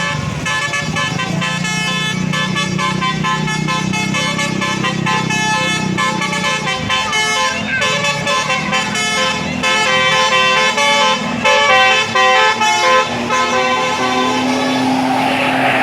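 Bus telolet musical air horn on a Basuri bus playing a tune of quick stepped tones over a low steady hum, with a rush of hiss near the end.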